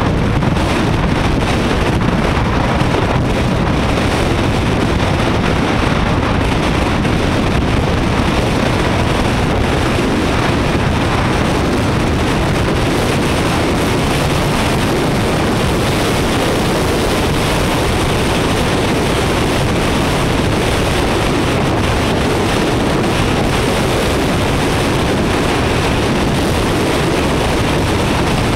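Steady rush of wind buffeting the action camera's microphone while riding at speed, mixed with engine and road noise from the moving vehicle.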